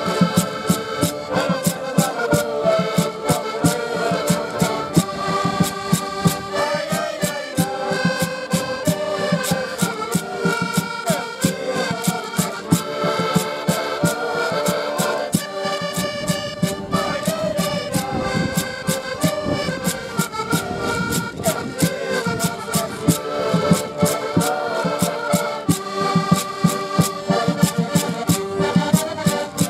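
Ensemble of diatonic button accordions (Portuguese concertinas) playing a lively traditional folk tune together, with many sustained reedy chords. A sharp clicking beat from hand percussion keeps a steady rhythm under the accordions.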